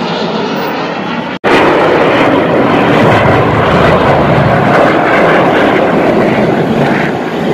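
Formation of jet aircraft flying past trailing display smoke, their engine noise a loud, steady rush. The sound cuts out for a moment about a second and a half in and comes back louder.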